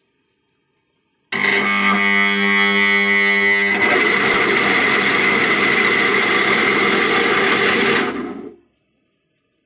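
Vikhr 1200/50 pumping station's electric motor humming for about two and a half seconds without turning, then starting and running with a rough, noisy sound for about four seconds before it cuts off and dies away. The hum before start is the sign of the rotor binding on a worn front rotor-shaft bearing with heavy play.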